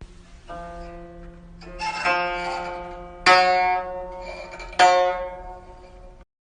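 Background music of slow plucked-string chords: three chords struck about a second and a half apart, each ringing out and fading, stopping abruptly near the end.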